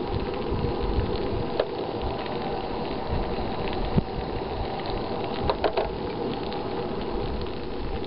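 Pieces of fish sizzling steadily in a frying pan on a portable camp stove, with a few light metal clicks as tongs and pan are handled.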